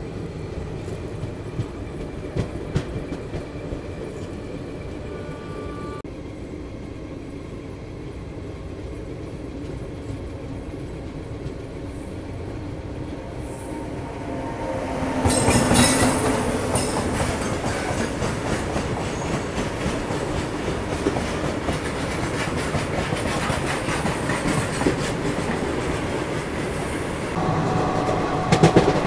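An express train's wheels clattering over the rails, heard from an open coach door. About halfway through, the sound jumps louder as a freight train hauled by an electric locomotive passes on the next track, and it stays loud as the wagons go by.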